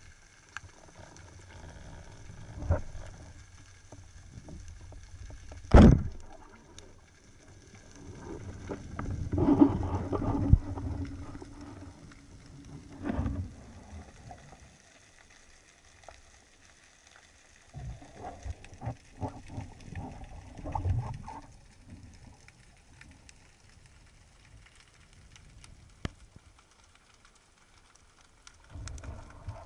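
A speargun fires underwater with one sharp knock about six seconds in. Scuffling and knocks follow as a speared fish struggles on the shaft and is handled, with another burst of clicks and knocks later.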